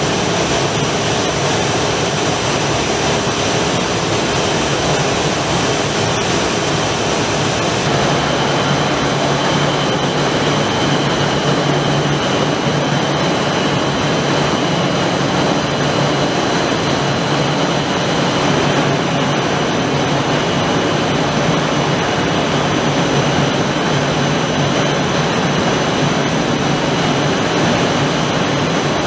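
Three-layer blown film extrusion line running: a steady, loud whooshing machinery drone with a faint high whine over it.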